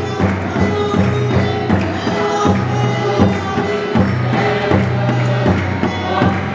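Congregation singing a hymn together, with a large wooden barrel drum (Mizo khuang) beaten with a stick to a steady beat and an electronic keyboard playing sustained low notes underneath.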